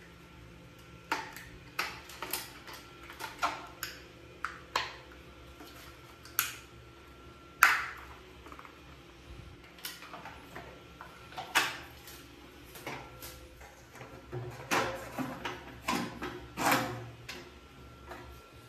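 Irregular plastic clicks and taps from a toilet tank's plastic flush valve and its seal being handled and reassembled, one to a few at a time with gaps between. A denser run of knocks comes near the end as the valve is set back into the ceramic tank.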